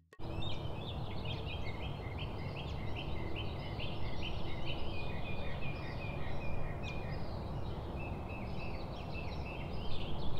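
Small birds chirping in quick, repeated short notes over a steady low background rumble.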